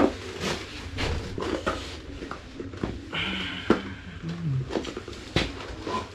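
Irregular clicks and knocks from hands and tools working on a fat-tyred bicycle wheel, handling the tyre and rim.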